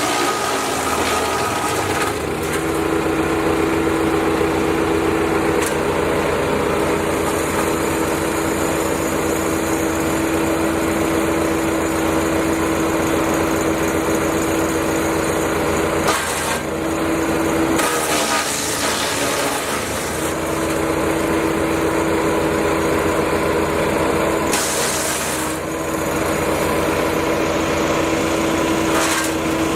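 Rock Machinery RX-13 petrol wood chipper, driven by a 420cc Briggs & Stratton XR2100 engine, running steadily with a constant hum. In the second half, several bursts of wood being chipped, each lasting a second or two, briefly pull the engine down under load.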